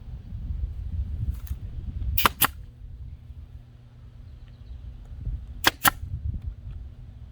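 Nail gun firing into pallet boards: two pairs of sharp shots, the two shots in each pair a fraction of a second apart and the pairs about three and a half seconds apart.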